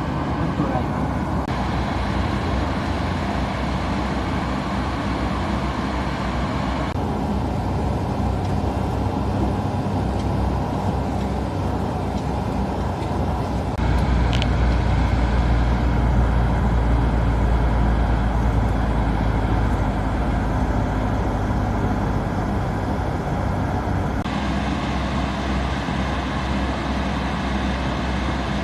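Motor vehicle running: steady engine and road rumble that changes abruptly a few times where clips are joined, deepest and loudest through the middle of the stretch. A brief high tone sounds about fourteen seconds in.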